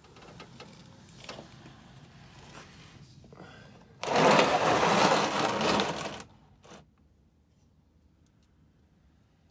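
Plastic oil drain pan pushed across a concrete garage floor: light scuffing and knocks, then a loud scraping slide lasting about two seconds, and one more knock just after.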